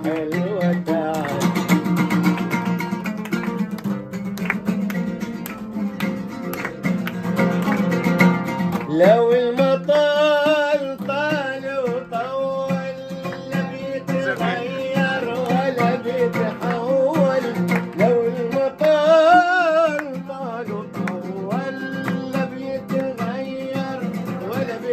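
Oud played with plucked and strummed notes over a steady low tone. About nine seconds in, a voice starts singing long wavering notes over it. Hand claps keep time along with the music.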